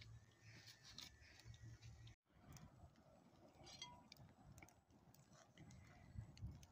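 Near silence: faint outdoor ambience with a low rumble and a few soft ticks, cut to total silence for a moment about two seconds in.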